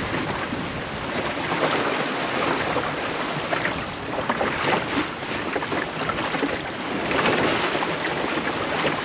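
Water rushing and splashing along the hull of a small clinker-plywood sailing dinghy under way in a choppy sea, mixed with wind buffeting the microphone: a steady rushing hiss full of small crackles, swelling and easing.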